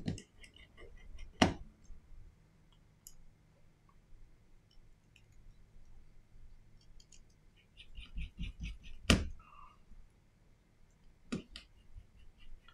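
Small hand tools clicking and tapping on the opened smartphone's frame and parts, with two sharper knocks, one about a second and a half in and one about nine seconds in, and a quick run of small clicks just before the second.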